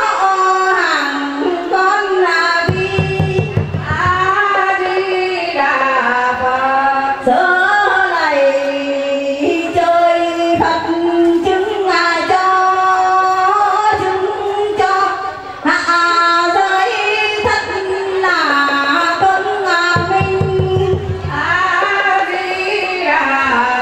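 A woman singing a slow devotional chant into a microphone, with melodic lines and long held notes. A barrel drum gives a short low roll a few seconds in and again near the end.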